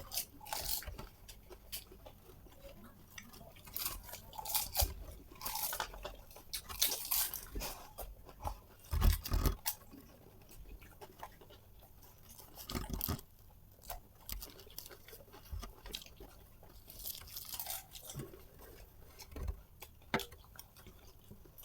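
Crisp panipuri (fuchka) shells crunching and being chewed, in irregular bursts with pauses between mouthfuls.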